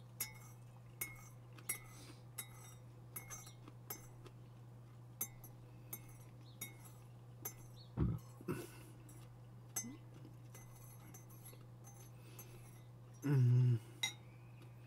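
Eating at the table: a run of small sharp clicks and clinks, about one every three-quarters of a second, over a faint steady hum. There is a louder low gulp-like sound about eight seconds in, and a short low voiced sound near the end.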